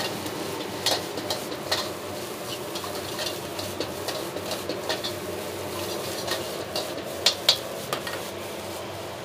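Metal ladle scraping and clanking against a wok as egg fried rice is stir-fried, over a steady sizzle. The strikes come irregularly, and two sharp clanks a fraction of a second apart stand out about seven seconds in.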